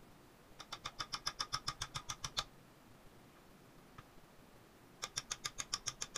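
Two quick runs of sharp, evenly spaced clicks, about ten a second and each under two seconds long, the second beginning about five seconds in, from hand work on the roller muzzle of a homemade roller speargun.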